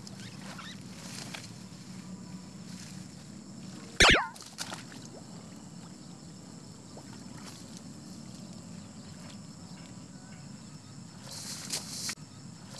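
Steady outdoor background noise with a faint high steady tone, broken about four seconds in by one loud, quick sweep falling steeply in pitch.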